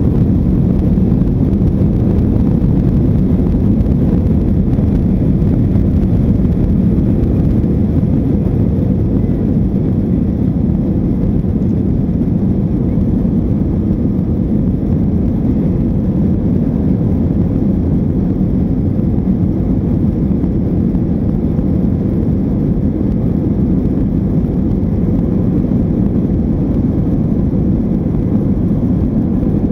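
An airliner's engines heard from inside the passenger cabin during the takeoff roll: a steady, loud low rumble with a faint steady hum on top, holding level throughout.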